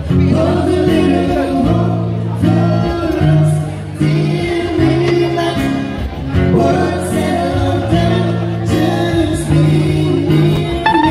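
Live band playing a song: a singer's voice with acoustic guitar, through a PA system.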